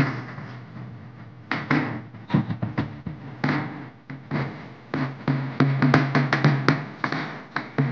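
Dance music with drums: a steady low note under many quick drum strikes. The beat thins out briefly about a second in and again around four seconds, then comes back as a dense run of strikes.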